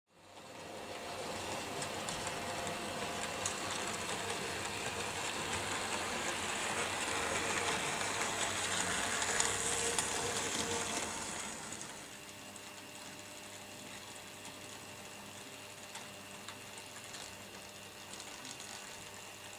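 Vintage Märklin SK 800 model steam locomotive running along the track: a steady mechanical whir of its motor and gearing with occasional faint clicks. It starts suddenly, is louder for the first dozen seconds, then drops to a quieter, even run.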